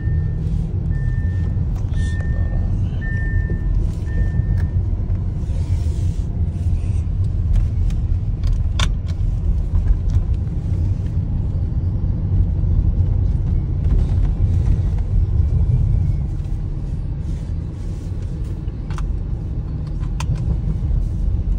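Lamborghini Urus's twin-turbo V8 and tyre noise heard from inside the cabin while cruising: a steady deep rumble. A short electronic chime repeats about once a second during the first few seconds.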